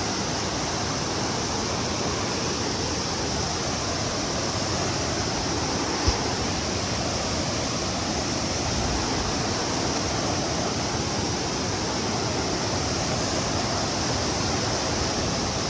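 Steady rushing water of a waterfall, an even, unbroken noise, with one brief knock about six seconds in.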